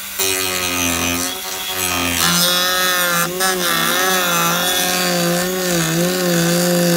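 Dremel rotary tool with a thin cut-off disc cutting along a crack in a fiberglass panel. The motor whines steadily, its pitch wavering as the disc bites into the fiberglass, with brief dips about a second in and again around three seconds in.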